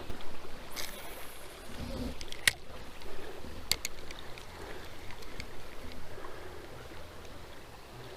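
Water sloshing and swishing as someone wades up a shallow, rocky creek, with a few sharp clicks and knocks.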